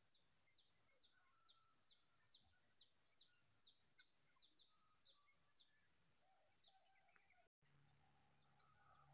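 Near silence, with a faint run of short, high, falling bird chirps, about two or three a second, that thins out near the end.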